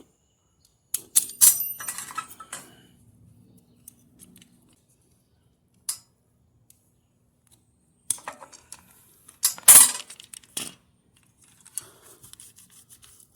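Metal washer parts and tools clinking and clattering as they are handled during reassembly, in two bursts: one about a second in, followed by a brief ringing, and a louder one about eight seconds in.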